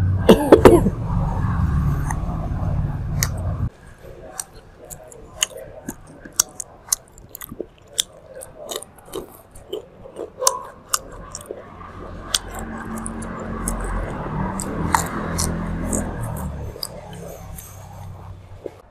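Close-up chewing and biting of grilled meat, a string of short wet clicks and crunches. A loud burst comes right at the start, and a low hum cuts off suddenly about four seconds in.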